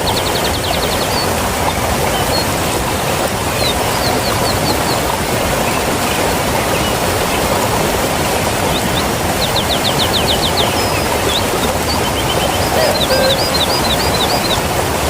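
Waterfall rushing steadily, swollen with rain. Birds sing several short phrases of quick repeated chirps over it.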